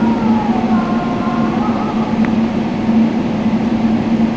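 Steady cabin noise inside a Boeing 777-300ER airliner: an even drone with a constant low hum, and a faint tone fading out in the first two seconds.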